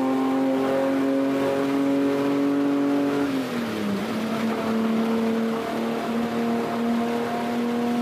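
Race car engine running at a steady high pitch. About three and a half seconds in the note dips sharply, then settles and holds at a slightly lower steady pitch.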